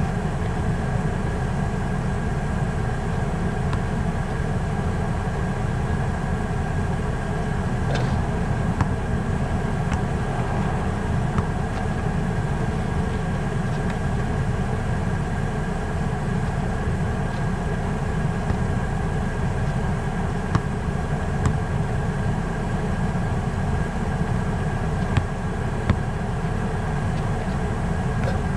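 Steady low rumble with a constant hum, like an idling engine, and a few faint short knocks scattered through it.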